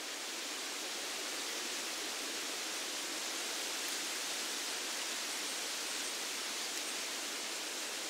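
Wind rustling through the leaves of broadleaf forest trees: a steady, even hiss of leaves that swells slightly near the start.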